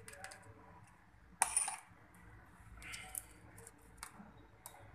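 Small plastic and metal clicks and knocks as an Asus laptop motherboard is worked loose and lifted out of its chassis, with a brief loud clatter about a second and a half in and a smaller one about three seconds in.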